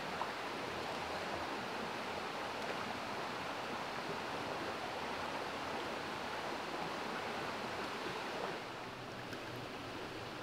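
Small rocky stream rushing steadily over riffles and stones, an even wash of running water that drops a little near the end.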